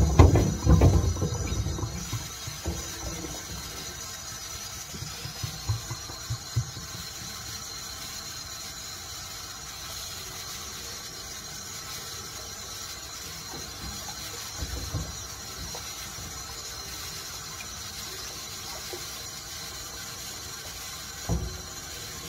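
Bumps and knocks of things being handled on a tabletop close to the microphone, a cluster of them in the first two seconds and a few single knocks later, over a steady high hiss.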